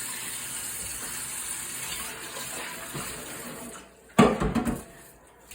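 Kitchen tap running into a sink, then shut off a little before four seconds in, followed by a brief loud knock.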